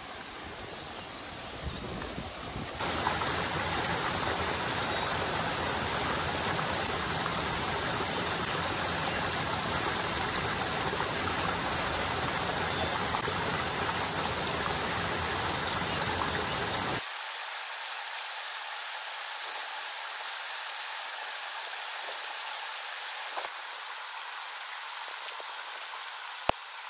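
Small mountain stream and waterfall running over rocks, a steady rush of water. It gets abruptly louder about 3 s in and turns thinner, with the deep part gone, about 17 s in, and a single sharp click sounds near the end.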